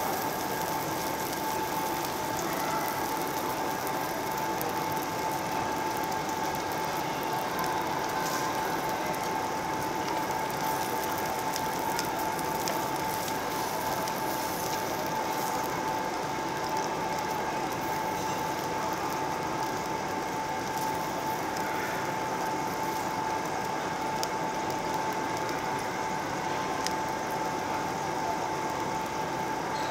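Pork belly sizzling and crackling steadily on a hot tabletop Korean barbecue grill, a dense continuous spatter of fine pops, with a steady high hum running underneath.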